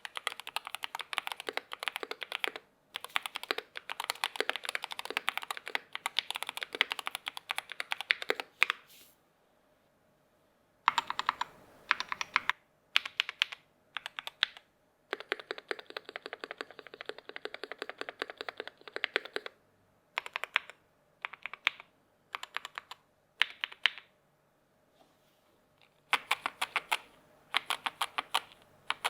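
Keys of a Keychron K2 HE keyboard with magnetic switches being typed on, a sharp clicking in bursts separated by short pauses. In the middle comes a long, very fast, even run of key presses.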